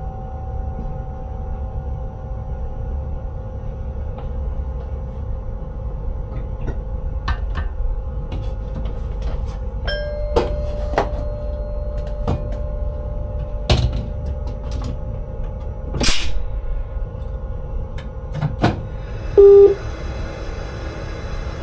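Interior of an electric intercity train's driver's cab: a steady low rumble with a constant electrical hum, scattered clicks and knocks, a short loud beep near the end, then a hiss.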